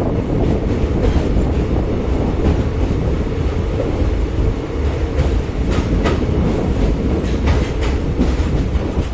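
Prashanthi Nilayam Express train running on the track: a loud, steady rumble with scattered sharp clacks of the wheels over the rails.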